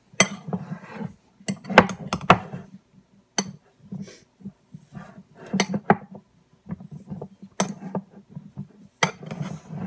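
Metal fork clinking and scraping against a ceramic bowl while mashing garlic-and-herb butter, in irregular strokes with a quick run of clinks about two seconds in.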